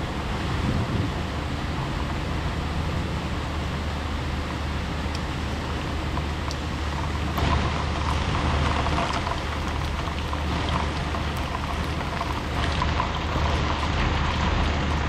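Heavy rain pouring in a thunderstorm: a steady hiss with scattered drop ticks over a constant low rumble, swelling slightly about halfway through and again near the end.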